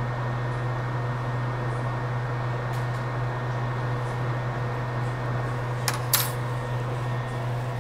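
Steady whir of a workbench fan with a constant low hum, and two light clicks close together about six seconds in as a tool is handled on the bench.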